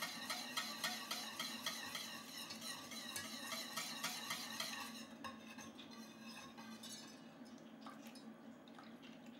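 Wire whisk stirring a thick roux-and-chicken-stock sauce in a stainless steel saucepan: a rhythmic scraping at about four strokes a second that grows fainter about five seconds in.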